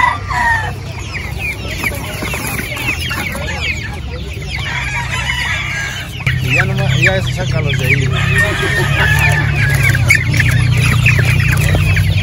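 Many chickens clucking and calling together, a dense chatter of short calls, with a steady low hum underneath. It grows louder about halfway through.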